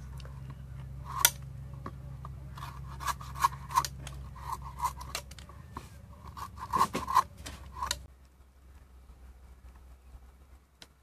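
Sickle blade scraping and cutting at the hard, woody shell of a wood apple: a run of rasping scrapes and sharp clicks that stops about eight seconds in.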